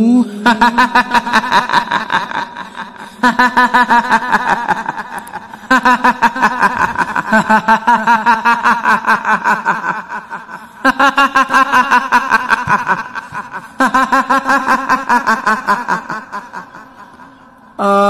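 A woman's voice laughing in rapid, pulsing 'hihihi' bursts, the ghostly laugh of the kuntilanak of Indonesian folklore. It comes in five long bouts, each starting loud and tailing off.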